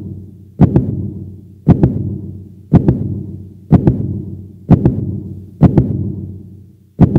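Heartbeat sound effect used as a suspense cue: deep double thumps, about one a second, each fading away before the next.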